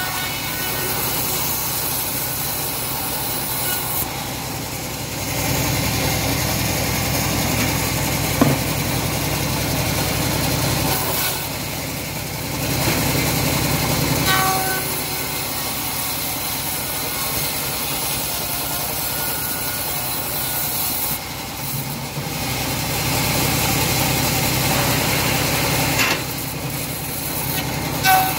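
Homemade bandsaw mill running with its blade sawing lengthwise through a teak slab, a steady drone that grows louder in stretches as the blade works under load in the wood. A single sharp knock about eight seconds in.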